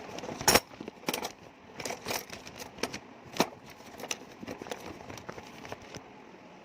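Irregular sharp clicks and knocks of hand tools and small metal parts being handled, the loudest about half a second in, over a faint steady hiss.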